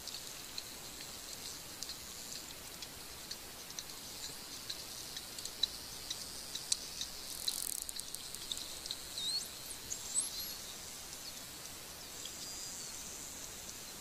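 Dolphin underwater, making scattered sharp clicks with a dense burst of clicking about seven seconds in, and short high whistles, some rising in pitch, in the second half. A steady underwater hiss lies beneath.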